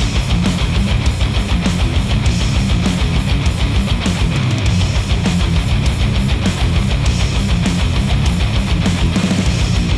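Heavy rock music with distorted electric guitars over a fast, steady beat, played back through HIFIMAN Edition XS open-back headphones and picked up by microphones at the earcups.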